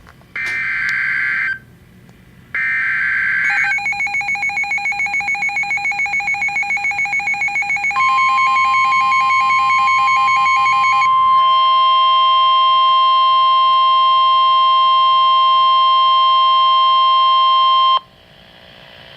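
NOAA Weather Radio Emergency Alert System alert: two short bursts of screechy digital header tones, then a rapidly pulsing electronic tone, then the long steady warning alarm tone, which cuts off suddenly about 18 seconds in. It leaves a rising radio hiss, signalling that a warning is about to be read out.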